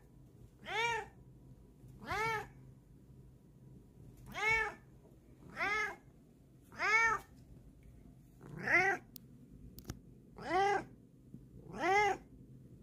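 Bengal cat meowing over and over: about eight short meows, each rising and then falling in pitch, one every second or two.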